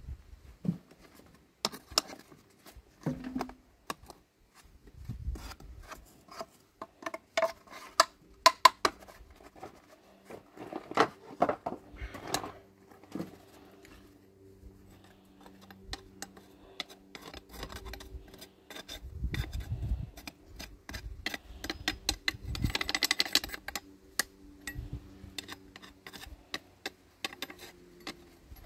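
Crumbly red casting mould being broken up and scraped away in a steel wheelbarrow with a metal rod: irregular crunching and scraping of the mould lumps, with sharp clinks of the rod against the barrow and the freshly cast water-inlet part.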